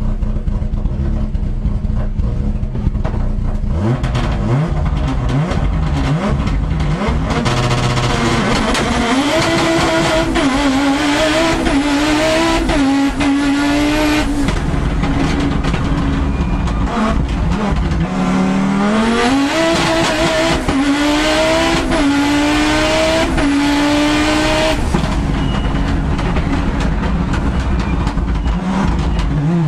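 Audi Quattro S1 Group B rally car's turbocharged five-cylinder engine heard from the cockpit, accelerating hard through the gears: the pitch climbs and falls back at each upshift, over and over after a lower start.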